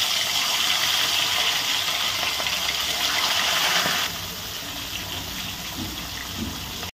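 Pieces of hilsa fish sizzling in hot oil in a wok, with a steady hiss. It is louder for the first four seconds, then settles lower, and cuts off suddenly near the end.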